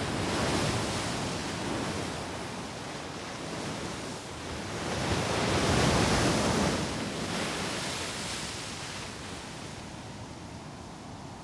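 Strong wind blowing in gusts: a rushing noise that swells to its loudest about halfway through and then dies down.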